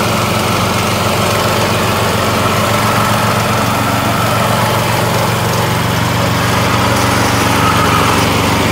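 The single-cylinder Lifan petrol engine of a Vezdekos TS 1000 walk-behind brush mower running steadily as the mower moves across grass.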